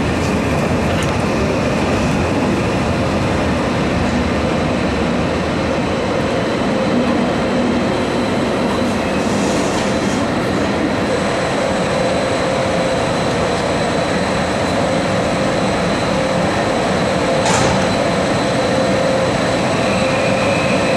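Passenger train running on the rails as it pulls in to its terminus, heard from aboard: a steady rumble of wheels and coach with a faint high whine, and a single sharp click near the end.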